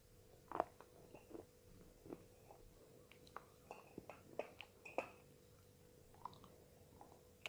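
Slate pencil being bitten and chewed: sharp, irregular crunches, the loudest about half a second in and about five seconds in.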